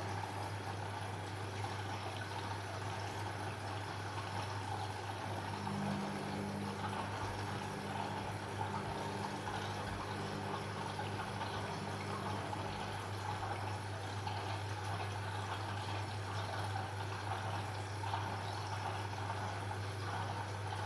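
Washing machine running with water flowing and splashing inside it over a steady low hum; a second, higher hum comes in about a quarter of the way through and drops out a few seconds later.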